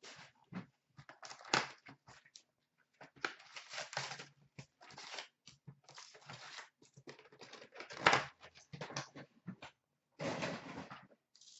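A cardboard box of 2016-17 Upper Deck SP Authentic hockey cards being opened by hand and its foil packs pulled out and stacked: irregular rustling, scraping and light tapping of cardboard and packs, with a sharp knock about eight seconds in.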